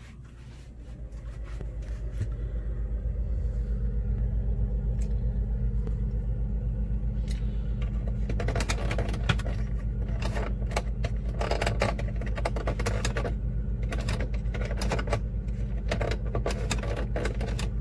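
Refrigerator compressor starting up after the fridge is plugged back in with a new cold control thermostat, building over a few seconds to a steady low hum. Scattered clicks and rattles of handling sit over it.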